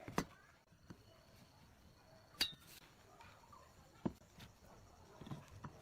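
A few short, scattered knocks and taps of wood and tools being handled, the loudest about two and a half seconds in with a brief metallic clink.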